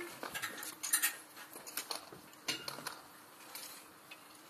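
Bike polo play: scattered sharp clacks and clinks of polo mallets and bicycles, the loudest about a second in.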